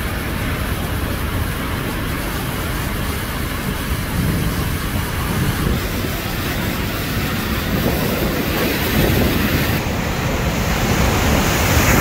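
Heavy sea surf breaking and crashing over a rocky shore in a continuous wash, with wind rumbling on the microphone. It grows louder near the end as a wave breaks close by.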